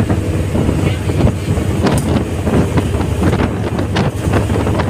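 Wind buffeting the microphone in irregular gusts, over the low steady hum of a roll-on/roll-off ferry's engines.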